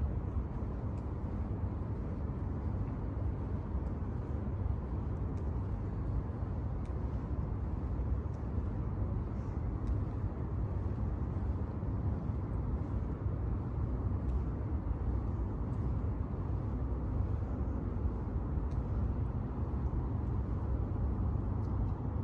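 Steady low rumble of outdoor city ambience, with a few faint light ticks scattered through it.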